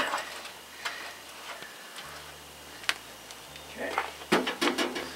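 Hands working a greased steel pin and the hydraulic cylinder's mounting end on a loader arm: a couple of sharp metal ticks, then a cluster of scraping and rubbing near the end.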